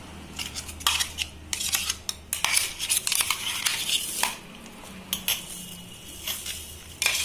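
Steel spoon scraping and clinking against a stainless steel mixer-grinder jar, scooping thick ground peanut chutney out into a steel bowl. It comes as an uneven run of scrapes and sharp knocks.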